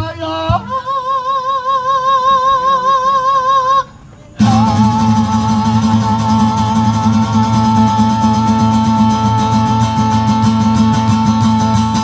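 A man singing long, held notes with vibrato over an acoustic guitar. Around four seconds in, the music breaks off for a moment. It then comes back louder, with fast, even strumming under a long held vocal note.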